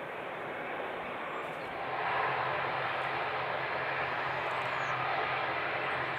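Jet engines of a departing Boeing 787-10 Dreamliner running on the runway: a steady rumble and hiss that gets louder about two seconds in.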